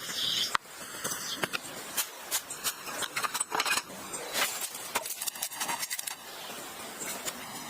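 Irregular clicks, taps and scrapes of hands and tools at work, several sharp knocks a second, with no steady machine sound.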